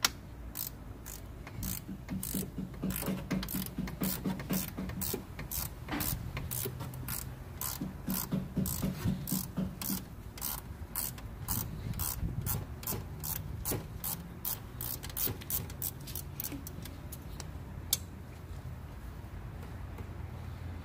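Socket ratchet clicking in a long run of strokes, about three clicks a second, as a 10 mm bolt holding a car's radiator fan assembly is backed out. The clicks thin out and stop about three-quarters of the way through, with one sharper click shortly after.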